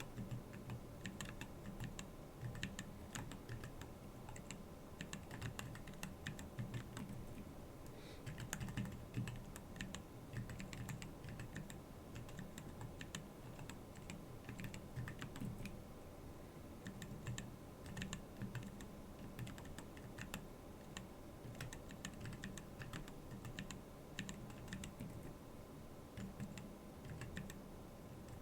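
Continuous typing on a Keyball39 split mechanical keyboard: a fast, irregular run of key clicks, each with a low thud as the key bottoms out.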